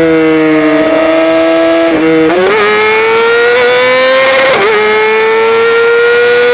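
A 2018 Yamaha R6's inline-four engine running through a Yoshimura full-system exhaust under way, heard from the rider's seat. The engine note sags slightly, breaks off briefly about two seconds in and then climbs steadily. A little past four and a half seconds it breaks and drops in pitch again, as the rider changes gear.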